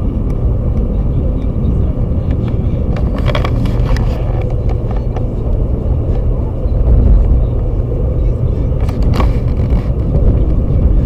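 Pickup truck driving on the road: a steady low rumble of engine and road noise, with a couple of brief knocks.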